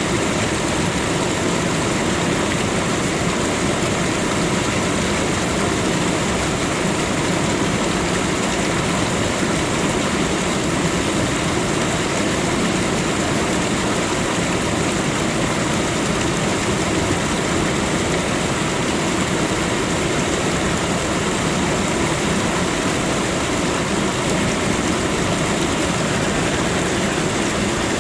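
Waterfall: water falling and rushing in a loud, steady, unbroken roar.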